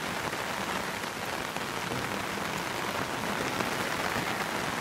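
Heavy rain falling on the river surface, a steady, even hiss.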